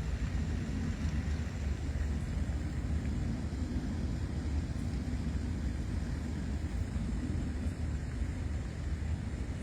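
A steady, low engine drone that holds even throughout, with no distinct events.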